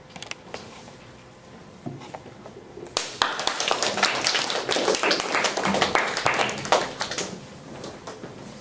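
A small group of people clapping, starting about three seconds in and lasting about four seconds before dying away.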